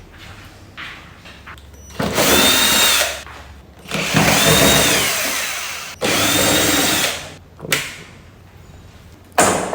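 Electric drill-driver running in three short bursts, its motor whine rising, holding and falling with each burst. A couple of sharp knocks follow near the end.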